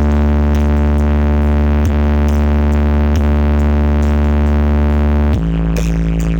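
Electronic dance remix with a loud, held deep bass synth note, shifting to another note about five seconds in.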